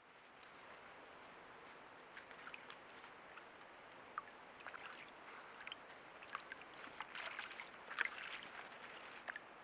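Creek water running faintly, with scattered small splashes and drips, busiest near the end and loudest just before eight seconds in.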